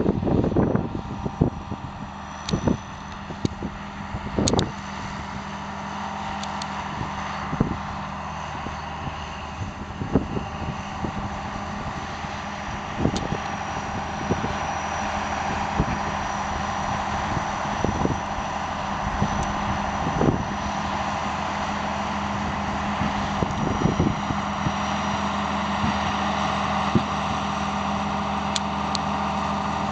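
Diesel engines of crawler bulldozers, an Allis-Chalmers HD11 and a Caterpillar D6, running steadily under load while pushing brush and soil, with scattered clanks from tracks and blade. The engine sound grows louder as a dozer comes close near the end.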